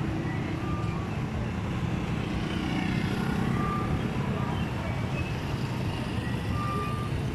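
Street traffic with a motorcycle engine running as it passes along the road, a steady low hum that swells slightly partway through.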